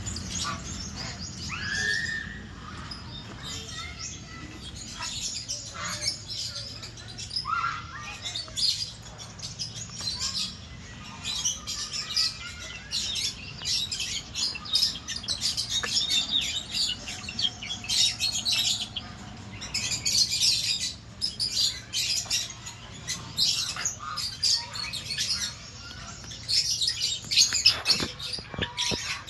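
A large number of birds chirping at once, with many short, overlapping calls forming a continuous chatter.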